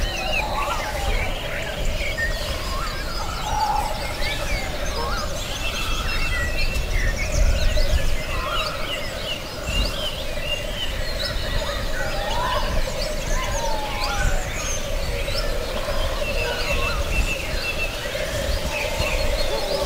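A forest bird chorus: many birds chirping and trilling, overlapping all the time, over a steady low drone.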